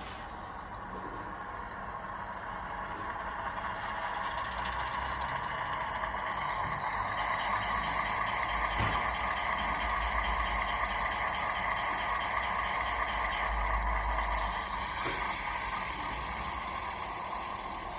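Model Class 28 diesel locomotive's DCC sound decoder playing its engine sound through a small speaker, the engine growing louder for several seconds and then easing back, with a hiss over the middle stretch.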